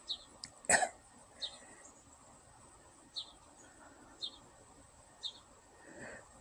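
A bird calling with short high chirps about once a second. One loud, sharp sound about three-quarters of a second in is the loudest thing.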